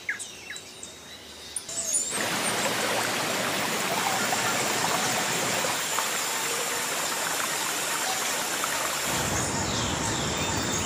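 Rushing river water, a steady dense rush of white water that cuts in suddenly about two seconds in, just after a few short bird chirps. A deeper rumble joins it near the end.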